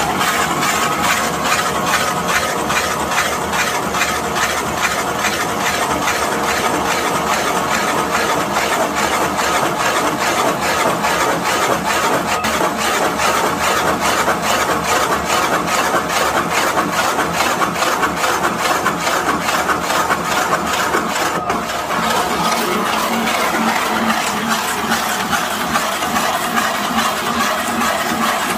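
Woodworking lathe hollowing out a log on automatic feed, the cutter chewing steadily through the wood in a fast, even rattle.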